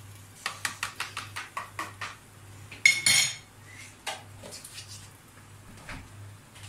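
Metal spoon clinking against dishes: a quick run of about a dozen light taps, roughly seven a second, then one louder clink with a short ring about three seconds in, followed by a few scattered soft knocks.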